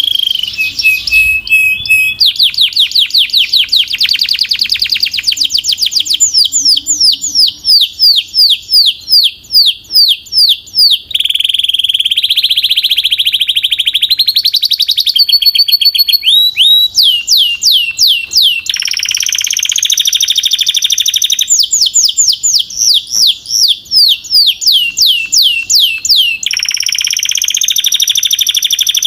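Domestic canary singing loudly, phrase after phrase. Fast rolls of high repeated notes give way to slower runs of sweeping, drooping notes a few a second, mixed with held whistled tones. The song cuts off suddenly at the end.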